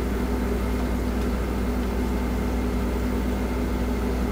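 Steady low machine hum with a faint high whine, unchanging throughout.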